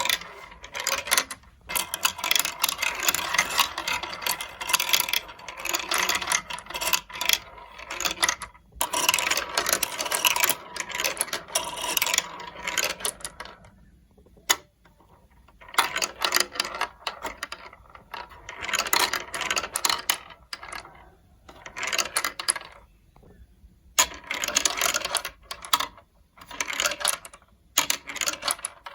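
Marbles rolling and clattering through a plastic building-block marble run, in runs of several seconds broken by brief pauses, with a single sharp click about halfway through.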